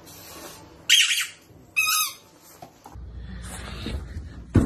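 Two short, high-pitched squeals from a French bulldog, about a second and two seconds in. A low rumble of handling noise follows, with a sharp knock near the end.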